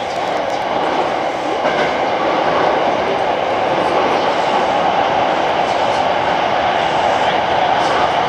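Hankyu Kyoto Line train running through an underground tunnel, heard from inside the car: a steady rumble of wheels and running gear that grows a little louder over the first two seconds, with a few faint clicks.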